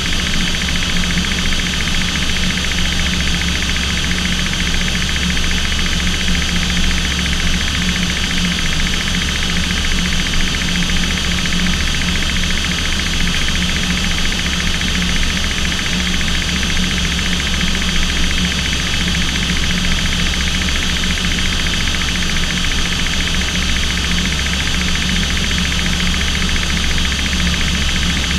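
Aircraft engines droning steadily, heard from inside the cockpit: a constant low hum with a high whine over it.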